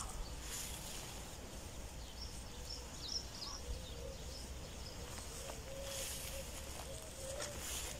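Rural outdoor ambience: small birds chirping faintly, with a few brief rustles through vegetation and a low rumble of wind on the microphone.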